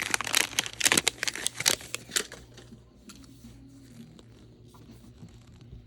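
Crinkly wrapping on a Mini Brands toy capsule being torn and crumpled by hand: rapid crackling for about two seconds, then only faint handling.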